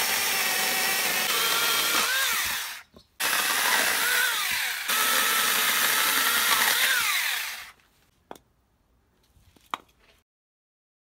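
Cordless 6-inch mini chainsaw on an 18V battery, its chain cutting into a hard ash (Shimatoneriko) log, the motor's whine bending up and down in pitch as it loads in the wood. It stops briefly about three seconds in, runs again, and cuts off near eight seconds, followed by two short clicks.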